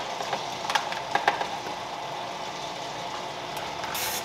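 Great Northern popcorn machine's kettle stirrer motor running steadily, its agitator turning freshly added kernels and salt in the heating butter, with a few sharp clinks about a second in and a short hiss near the end.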